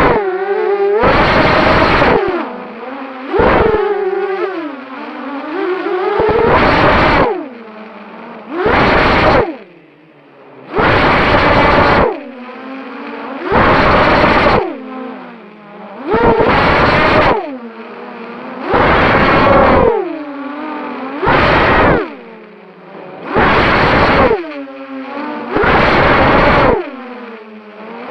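Small quadcopter's electric motors and propellers whining, the pitch bending up and down as the throttle changes. About every two and a half seconds a loud rushing noise lasting about a second swamps the whine.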